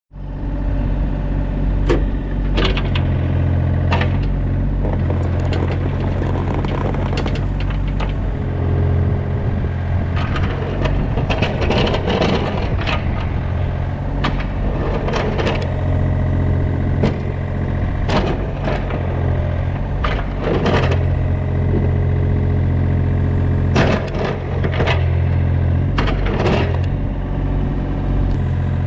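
Mini excavator's engine running steadily while its bucket digs into lawn sod and soil, with repeated sharp cracks and scrapes as the bucket teeth break through the ground.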